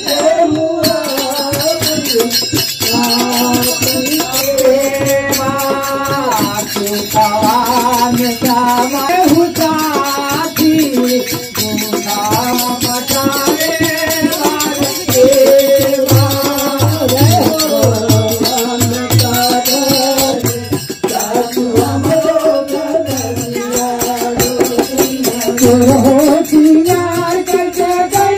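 Women singing a devotional Shiva bhajan, the kind sung at a Shiv charcha, over a steady rattling percussion accompaniment.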